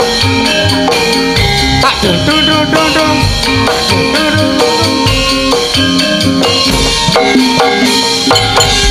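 Javanese gamelan ensemble playing: short ringing metallophone notes over a busy hand-drum pattern.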